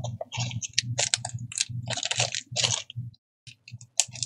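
Small clear plastic bead bag crinkling in the fingers as it is worked open, with glass beads clicking inside, in an irregular run of short crackles that pauses briefly about three seconds in.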